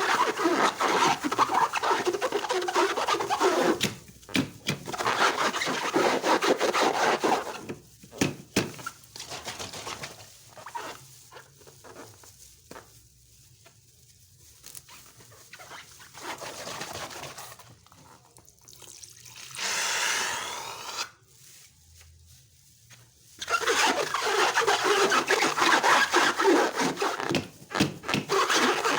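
Slime being squished and stirred, a dense wet crackling, in long stretches broken by quieter gaps with scattered clicks. A short high, wavering squeal comes about two-thirds of the way through.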